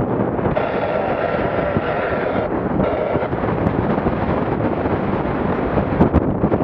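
Strong wind buffeting the microphone of a motorboat running through choppy water, a steady loud rush. A few sharp knocks come near the end.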